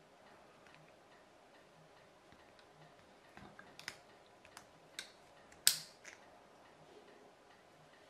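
Small clicks and snaps of 3D-printed plastic clothes-peg parts being handled and worked apart, with one sharper snap a little before six seconds.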